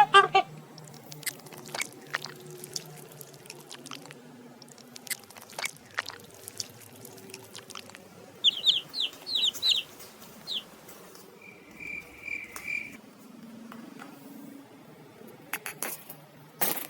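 Small bird chirping: a quick run of about six short, high chirps partway through, then a brief three-note call a few seconds later. Scattered taps and clicks run throughout, the loudest near the end.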